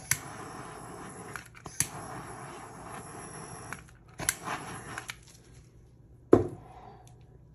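Handheld torch running with a steady hiss as it is passed over wet epoxy resin to pop the surface bubbles, with a few sharp clicks, cutting out about five seconds in. A little later comes one loud sharp knock, the tool being set down on the table.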